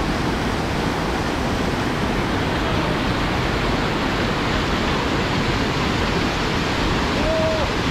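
Steady rushing of mountain water, a waterfall or fast stream, as an even noise without a break.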